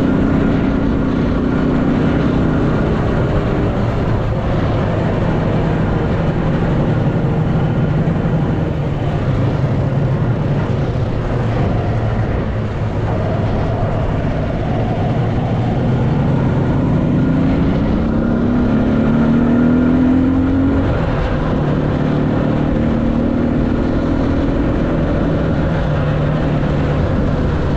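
A homemade all-terrain motorcycle's engine running under load in fifth gear while being ridden. Its pitch rises for a few seconds a little past the middle, then settles lower.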